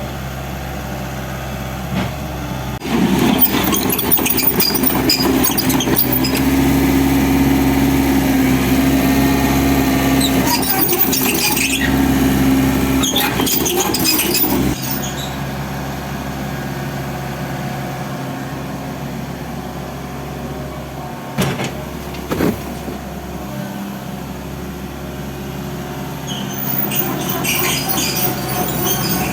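Hydraulic excavator's diesel engine running steadily. It is louder and working hard for about ten seconds, with a steady tone and scattered crackling, then settles back. Two sharp knocks come about two-thirds of the way through.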